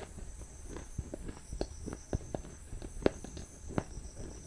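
A string of short, sharp clicks and taps at irregular intervals, the loudest about three seconds in, over a faint low hum.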